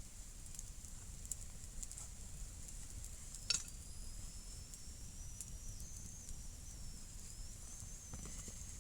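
Wood campfire crackling with small ticks and one sharp pop about three and a half seconds in. Right after the pop a thin, high whistle starts and slowly rises in pitch, over a steady hiss.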